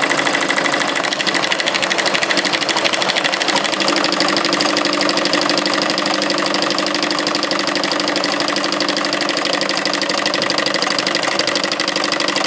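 NC 81200SN2 double-needle bobbinless netting sewing machine running steadily at speed, stitching a tape border onto netting, with a fast, even stitching rhythm.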